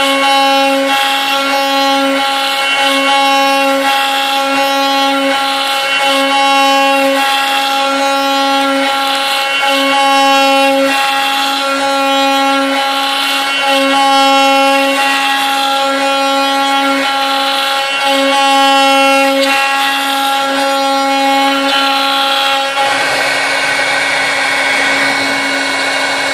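CNC router spindle running with a steady high-pitched whine while its end mill cuts a pocket in a wooden beam. Cutting noise swells and eases every few seconds as the bit passes back and forth through the wood. About 23 seconds in, the whine drops back and a rougher, lower cutting noise takes over as the bit works a new spot on the beam's top face.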